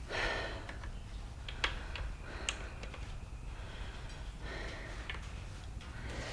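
A few scattered light clicks and taps of hand tools being handled on an engine block, over a low steady hum.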